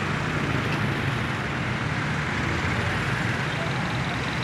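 Steady traffic on a busy city road: the running engines of passing cars, motorcycles and jeepneys, a low, even rumble with no single event standing out.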